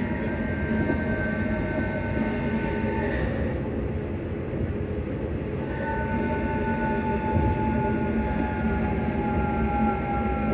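Class 334 electric multiple unit's traction motors whining under a steady rumble of wheels on rail, heard from inside the carriage. The whine falls slowly in pitch as the train slows, dies away about three and a half seconds in and returns about six seconds in.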